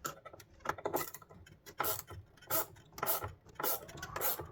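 Hand tool working the screws out of a plastic car headlight housing, a short rasping, ratchet-like stroke repeated about twice a second.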